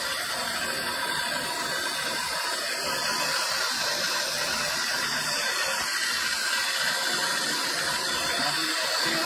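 Motor-driven spindle spinning a small grinding bit, with onyx marble pressed against it: a steady, hissing grind.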